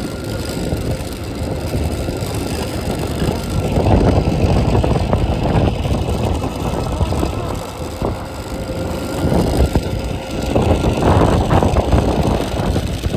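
A 12-volt Yamaha ride-on toy ATV driving over pavement: its hard plastic wheels rumble and rattle on the asphalt under a faint steady whine. The rumble gets louder about four seconds in and again near the end.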